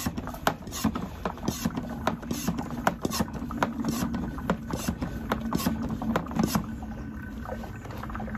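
Hand-pumped vacuum fluid extractor drawing engine oil up through the dipstick tube: irregular gurgling pops as oil and air go up the hose into the bottle. The pops thin out about six and a half seconds in, with the sump nearly empty.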